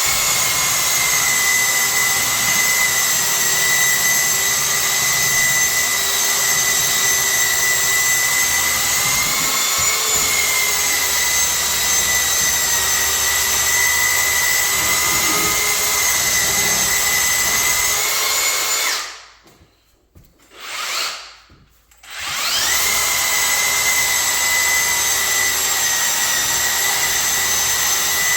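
Milwaukee M18 Fuel cordless belt sander running against wood cabinets, a steady motor whine with the rasp of the belt. About two-thirds of the way through it stops, gives one brief burst, then spins back up and runs on.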